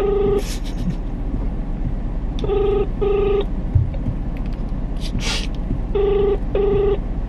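Phone ringback tone through a smartphone's speaker: a pair of short rings repeating about every three and a half seconds while the call goes unanswered. A low steady rumble runs underneath.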